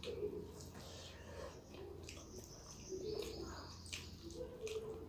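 Mouth sounds of someone eating rice and curry by hand: wet chewing and a few short smacks, with bird calls in the background.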